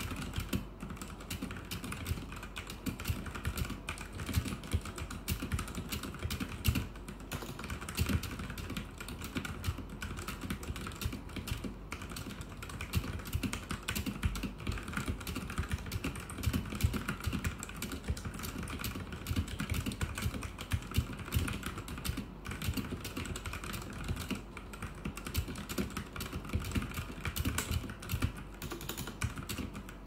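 Fast touch typing on a Royal Kludge RK71 mechanical keyboard with Outemu Red linear switches, at about 110 words per minute: a dense, continuous run of key clacks with no pauses, picked up by a phone's built-in microphone.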